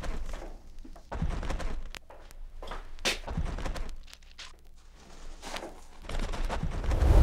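Footsteps and scattered thuds of people moving on a hard floor as a man rises from his chair and walks, with a low rumble swelling near the end.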